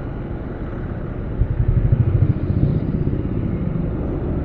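Motorcycle engine running low and steady, heard from a helmet-mounted camera, swelling louder for about a second near the middle.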